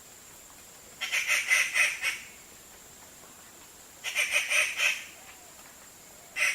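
Treepie giving harsh chattering calls, each a quick rattle of about half a dozen notes lasting about a second: two full rattles, and a third starting at the very end.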